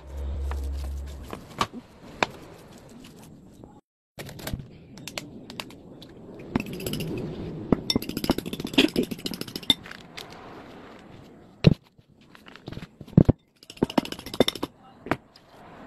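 Ceramic plates and a bowl clinking and scraping as they are handled on a wooden table, with scattered sharp knocks.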